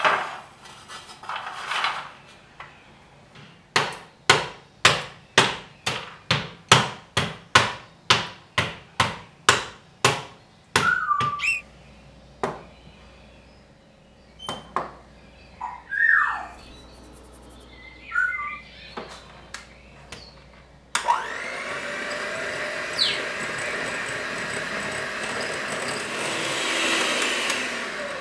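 A run of about fifteen sharp knocks, about two a second, then a few scattered clicks and scrapes. About three-quarters of the way through, a Moulinex electric hand mixer starts abruptly and runs steadily, its beaters whirring through butter in a glass bowl.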